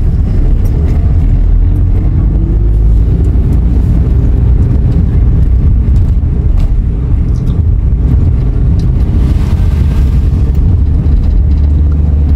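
Car driving along a highway: a steady low rumble of engine and road noise, with no change in pace.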